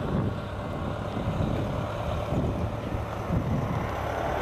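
Bell OH-58D Kiowa Warrior helicopter heard in the distance as a steady rumble of rotor and turbine, mixed with wind buffeting the microphone.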